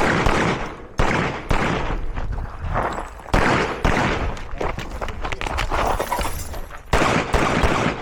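A string of pistol shots at irregular spacing, some in quick pairs, each sharp crack followed by a short echo, during a competition stage run.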